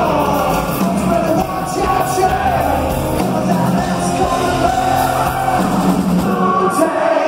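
Live hard rock band playing loud in a large hall, with electric guitar and a singing voice, heard from the audience. The low end drops away just before the end.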